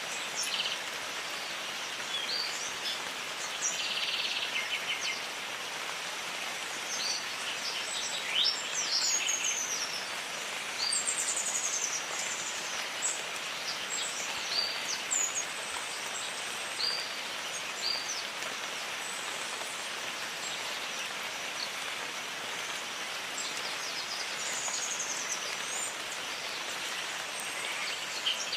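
Steady rain falling, with many birds chirping and whistling over it, calls busiest in the middle stretch.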